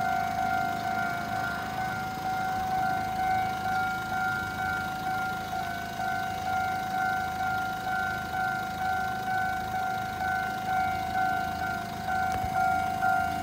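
Taiwan Railway level-crossing warning bell ringing, a steady two-tone electronic ding repeated in an even rhythm, over a low rumble.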